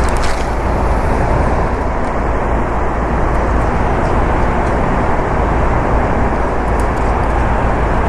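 Steady, loud rush of a fast-flowing river swollen by heavy rain, with a deep low rumble under it.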